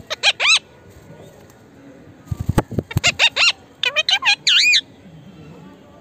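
Indian ringneck parakeet calling in three bursts of quick, high squawks that swoop up and down in pitch, with a few low knocks just before the second burst.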